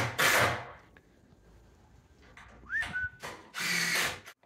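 A short whistle about three seconds in that rises in pitch and then holds briefly, between louder bursts of rushing noise at the start and near the end.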